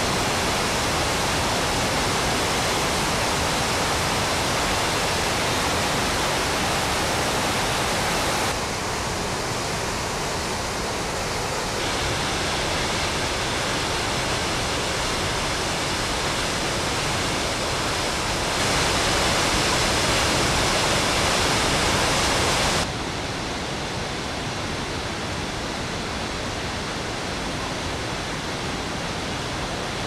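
Gullfoss, the double-cascade waterfall on the Hvítá river, giving a dense, steady rush of falling and churning water. Its loudness and tone change abruptly four times.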